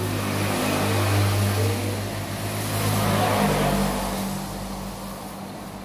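A motor vehicle going past, its engine hum swelling, then fading away near the end.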